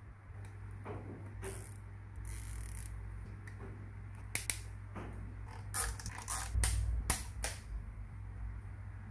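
Nylon zip ties being pulled tight and their tails snipped off with flush cutters. There is a short rasp about two seconds in, then a run of sharp snips and clicks from about four seconds in. A low steady hum lies underneath.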